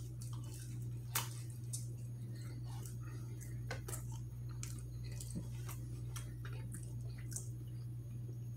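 A person chewing a mouthful of food close to the microphone, with irregular wet mouth clicks and smacks, over a steady low hum.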